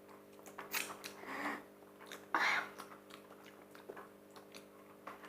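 Faint mouth sounds of hot sauce being licked off a finger and tasted: small lip smacks and clicks, with a couple of short breaths, the loudest about two and a half seconds in.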